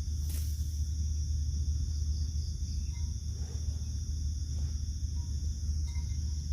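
Crickets or other night insects chirping in a steady high chorus, over a steady low rumble.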